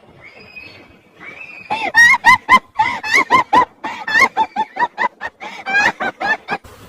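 An animal making a rapid run of short, loud, pitched calls, about four or five a second, each rising then falling in pitch. The run starts about two seconds in, after a few fainter calls.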